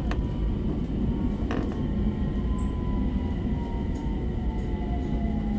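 Tram running on its rails, heard from inside the car: a steady low rumble with a whine that slowly falls in pitch, and two sharp clicks, one right at the start and one about a second and a half in.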